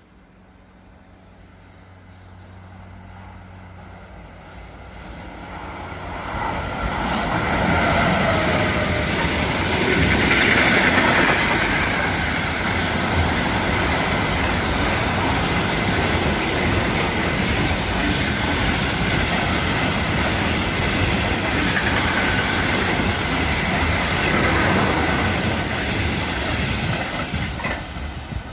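Intermodal container freight train approaching and passing at speed. It grows louder over the first several seconds, then its wagon wheels run steadily and loudly over the rails.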